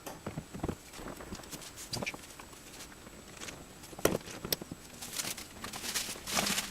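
Irregular small clicks and light metallic knocks of parts and hand tools being handled while the brake and clutch master cylinders are fitted to the pedal box, with a sharper click about four seconds in and a busier run of clicks near the end.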